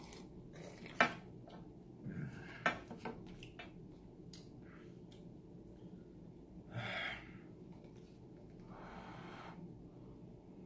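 A person slurping instant cup noodles and sipping the broth from the paper cup, with two longer slurps about seven and nine seconds in. There are a couple of sharp clicks in the first three seconds.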